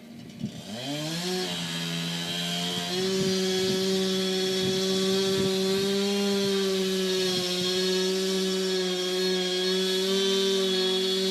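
Chainsaw engine speeding up in two steps within the first three seconds, then running steadily at high throttle.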